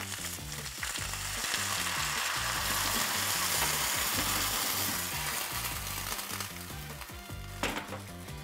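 Bok choy sizzling in a hot frying pan with dark sauce just added. The sizzle swells over the first few seconds, then eases off, and there is one sharp knock near the end.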